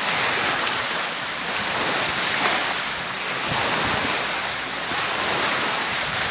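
Lake waves washing onto the shore in a steady rush, with wind on the microphone.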